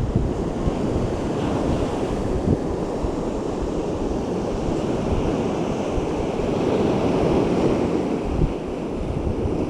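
Small waves washing onto a beach, with wind buffeting the microphone; the surf swells a little louder about seven seconds in.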